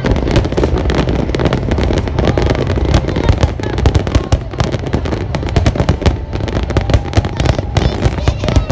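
Fireworks display: a dense, continuous barrage of rapid cracks and bangs over a low rumble.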